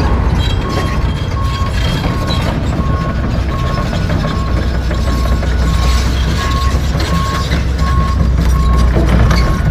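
A heavy-equipment backup alarm beeps steadily, about two beeps a second, over the low diesel rumble of a John Deere 245G track excavator at work.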